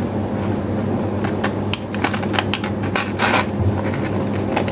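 Hard plastic filter parts and their blister packaging clicking and tapping in the hands as they are turned over, a few sharp clicks with the loudest about three seconds in, over a steady low hum.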